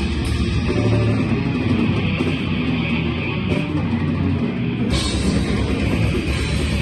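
A metal band playing live and loud, with distorted guitars and a drum kit. The high end drops back for a few seconds, then comes in bright again about five seconds in.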